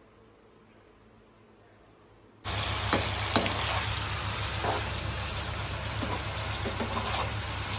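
Near silence at first, then, about two and a half seconds in, catla fish steaks shallow-frying in hot oil in a pan start up suddenly: a steady sizzle with scattered crackles and pops.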